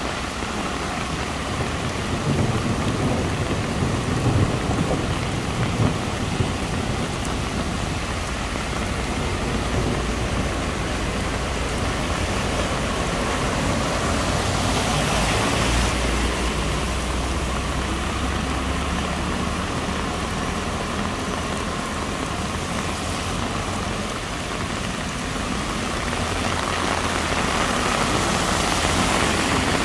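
Heavy rain pouring steadily onto a flooded road, with vehicles driving through the standing water, their tyres swishing and spraying it aside. One passes close about halfway through, and another near the end.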